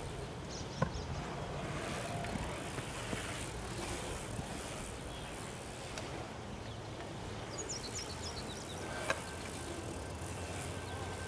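Bike tyres rolling on the concrete of a skatepark bowl over steady outdoor noise, with a sharp knock about nine seconds in.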